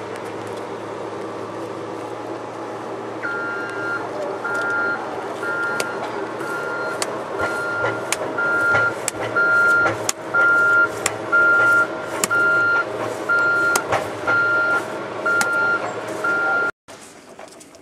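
A truck's backup alarm beeping in a steady regular series from about three seconds in, over the running engine, with some knocks mixed in; the sound cuts off abruptly near the end.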